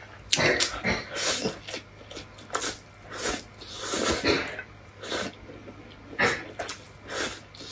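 Noodles being slurped up from chopsticks in a string of short, irregular slurps, close to the microphone.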